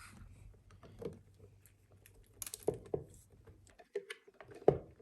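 Scattered small clicks and knocks of bike parts being handled and pushed into place by hand, with a sharper knock near the end.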